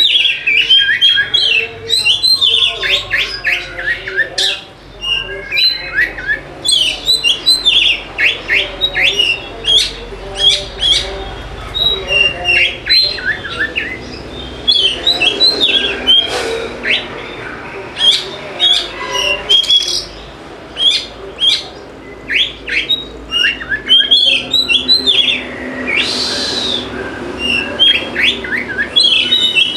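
Oriental magpie-robin (kacer) singing a rapid, varied song of sharp chirps and whistled notes, almost without pause.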